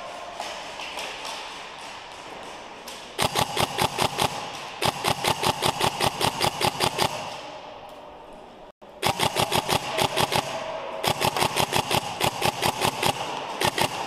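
Airsoft electric rifle firing rapid full-auto bursts, a fast even string of sharp shots lasting a few seconds at a time, with short pauses between bursts.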